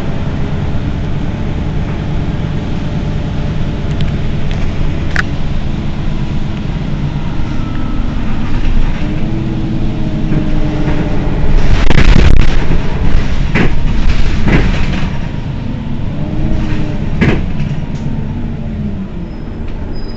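Mercedes-Benz Citaro city bus engine idling steadily while the bus stands still. A louder rush of noise comes about twelve seconds in, with a few short clicks.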